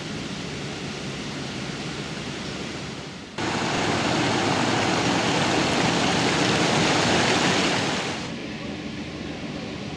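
Steady rushing noise that jumps suddenly much louder about three seconds in, holds for about five seconds, then eases back down.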